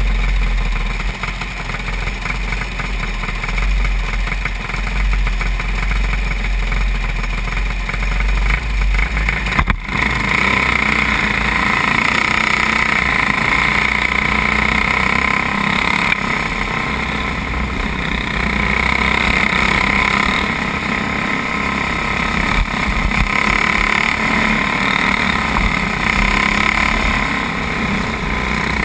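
Racing kart engine heard from onboard: a low rumble at slow pace for about the first ten seconds, then, after an abrupt change, the engine running hard at racing speed, its pitch rising and falling with the throttle.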